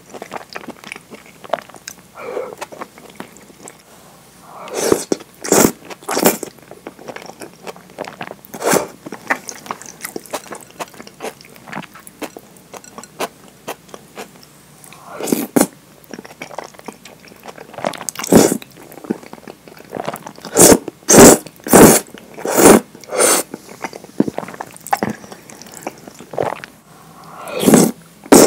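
Close-miked eating of thick curry udon: wet chewing and mouth smacks throughout, with a few long slurps of noodles (a few seconds in, around the middle and near the end) and a quick run of loud smacking slurps about two-thirds of the way through.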